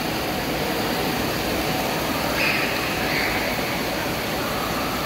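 Steady rush of spraying water jets and splashing water in an indoor water park's splash pool, with a faint short high cry, like a child's, about two and a half seconds in.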